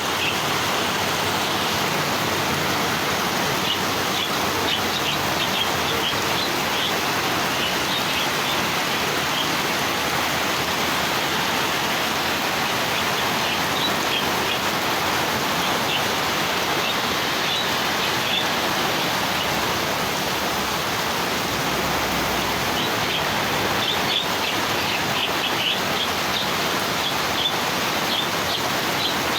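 Small birds chirping in short high bursts that come and go in clusters, over a loud, steady hiss.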